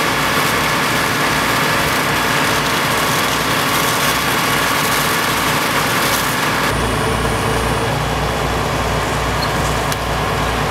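Heavy diesel engine of fire apparatus running steadily under a constant rushing noise. The engine sound shifts abruptly about two-thirds of the way through.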